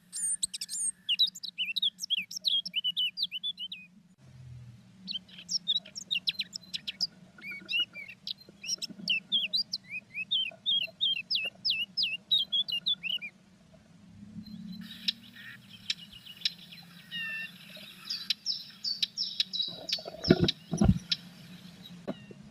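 Blue tits calling in quick runs of short, high chirps, followed by a stretch of rustling with a few low thumps near the end.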